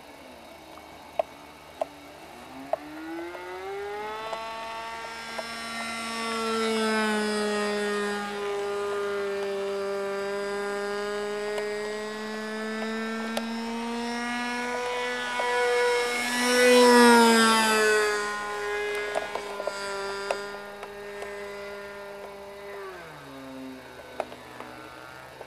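Two-stroke glow engine of an RC model airplane (a Thunder Tiger .46) running at high throttle in flight, a steady high buzz that climbs in pitch early on and wavers as the plane passes, loudest about two-thirds of the way through. Near the end the pitch drops suddenly as the engine is throttled back to a low idle.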